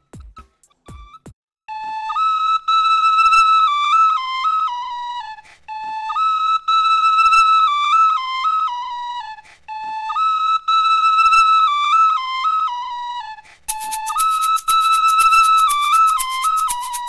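Recorder playing a simple melody, the same short phrase four times over. A fast rattling clatter joins in for the last phrase.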